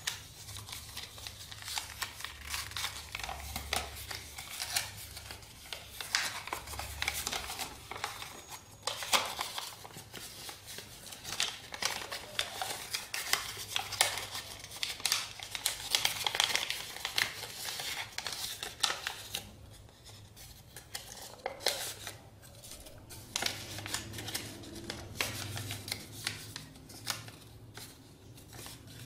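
A sheet of paper rustling and crackling as hands fold and crease it into an origami crane, in quick, irregular crinkles with a short lull about two-thirds of the way through.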